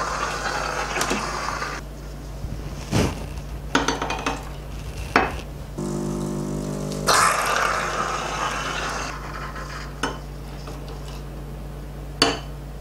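Ferratti Ferro FCM 3605 espresso machine's Ulka vibration pump running while shots are pulled: a hum, then a louder rush, once at the start and again about six seconds in. Between the two runs and near the end come sharp knocks and glass clinks as the portafilter and shot glasses are handled.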